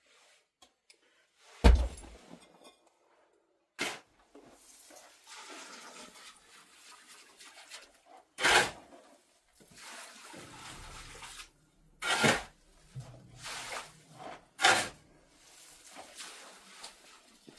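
Hand building work with wet cement: a series of knocks, the loudest a deep thump about two seconds in, between stretches of wet scraping and sloshing.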